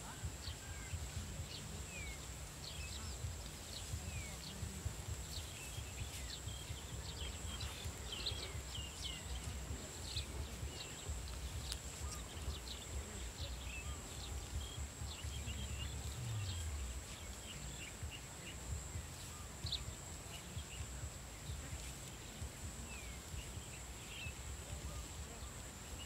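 Open rice-field ambience: many small birds chirping in short calls, a steady high-pitched insect drone, and a low, uneven rumble underneath.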